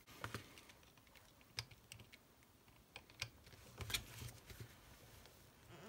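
Faint, scattered light clicks and taps of small die-cast metal and plastic toy car parts being handled, about five in all. No drill is running.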